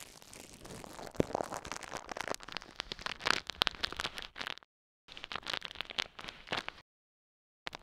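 Dense, irregular crackling clicks with hiss in three stretches: about four and a half seconds, then a second and a half, then a short burst at the end. Each stretch is cut off by dead silence.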